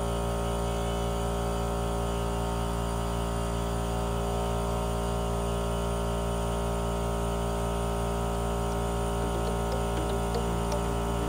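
Background music of steady, sustained tones. A few light clicks come in near the end.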